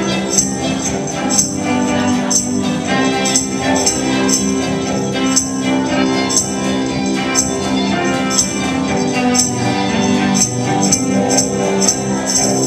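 Live band music with sustained pitched instruments and bright, jingly high percussion keeping a steady beat of about one strong hit a second.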